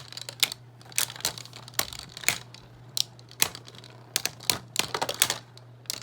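Two spinning Beyblade tops, a custom 3D-printed Agèma Ares and a Savior Valkyrie, battling in a stadium. They give sharp, irregular plastic clacks as they collide, about two a second, over a steady low hum.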